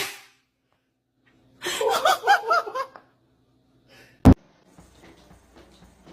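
A person laughing for about a second, followed by a single sharp click.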